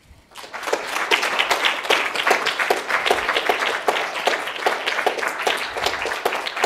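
Audience applauding: many hands clapping densely, starting about half a second in and keeping up at an even level.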